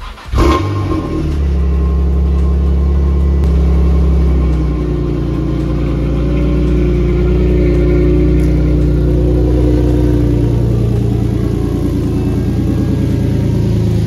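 Nissan 350Z's 3.5-litre V6 starting up with a brief flare about half a second in, then idling steadily, heard at the twin exhaust tailpipes.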